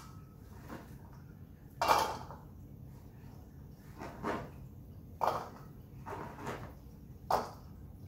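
A chef's knife knocking against a stainless steel mixing bowl and a cutting board while diced bell pepper is scraped into the bowl: about five separate knocks, the one about two seconds in the loudest.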